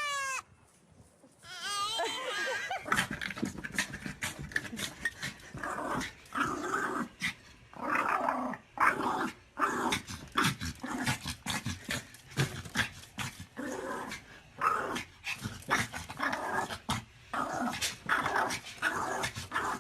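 A dog growling in short, irregular bursts that go on almost without a break.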